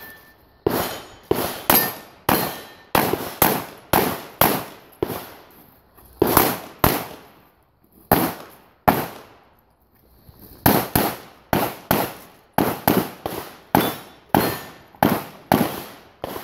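Rapid strings of 9mm pistol shots from a Glock 34 firing a USPSA stage: sharp cracks come in quick pairs, a few per second, with two brief pauses about halfway through while the shooter moves between positions.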